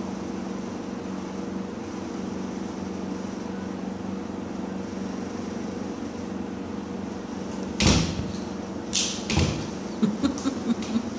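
A steady low mechanical hum. About eight seconds in come a sharp rustle and then a string of short knocks and bumps as the phone is moved and handled.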